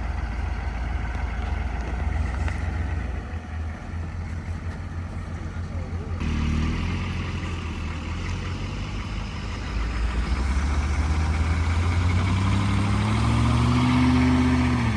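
Vehicle engine running steadily, then revving up in the last few seconds, its note climbing to a peak and dropping off just before the end.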